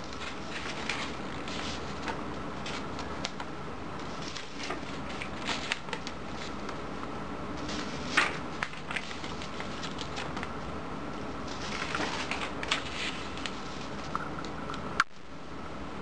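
Sheets of paper rustling and crackling in short, scattered bursts as a stack of handheld signs is handled, over a steady room hiss. A sharp click near the end, after which only a quieter hiss remains.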